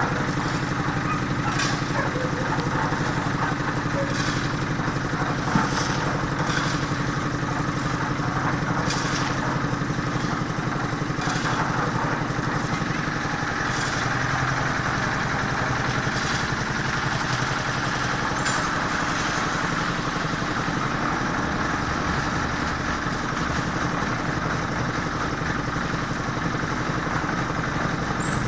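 An engine of construction machinery running steadily at an even speed, with occasional light clanks.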